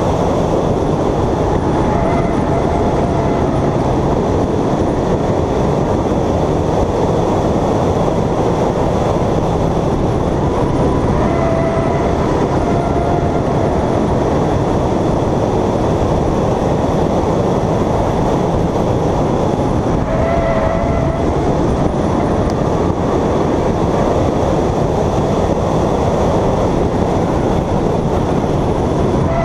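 Race car running on track, heard from an onboard camera: a loud, steady rush of engine, wind and road noise. A brief, faint squeal comes and goes about every nine seconds.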